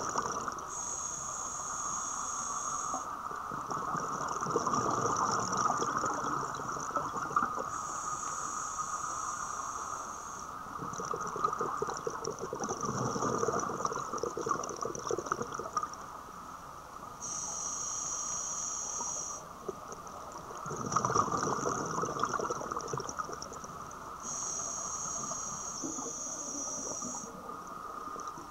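Scuba diver breathing through a regulator underwater: four hissing inhales about seven seconds apart, each followed by a rush of exhaled bubbles, over a steady hum.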